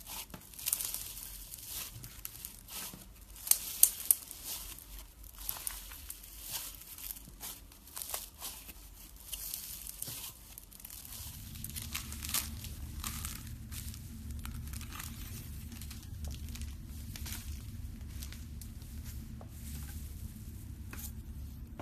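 Hands kneading and pulling apart a textured slime, making dense crackling and tearing sounds. About halfway through the crackles thin out over a steady low hum, and a thin gold-leaf-covered slime is pressed and crinkled.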